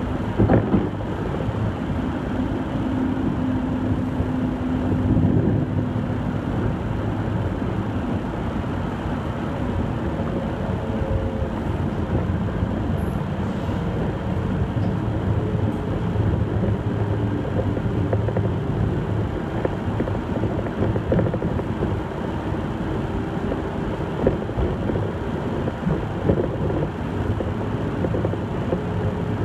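Light-rail train running on its tracks, heard from inside the car: a steady rumble of wheels on rail, with a hum from the electric traction motors that shifts in pitch.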